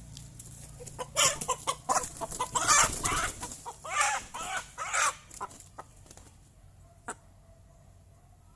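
Native chicken squawking and clucking in a loud run of calls for about four seconds, then falling quiet apart from a few faint sounds.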